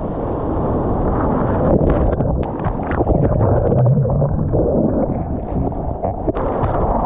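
Churning, rushing surf water and wind buffeting on an action camera's microphone as a bodyboard rides through breaking waves, with a few sharp splashes. About four seconds in, the camera goes underwater and the sound turns dull and low for a moment.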